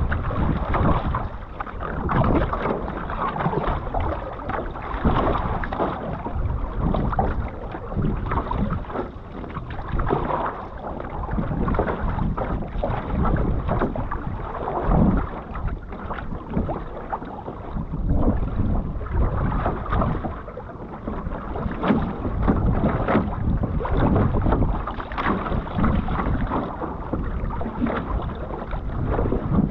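Water rushing and splashing along the hull and float of a one-person outrigger canoe as it is paddled through sea chop, swelling and easing every second or two with the strokes and the swell.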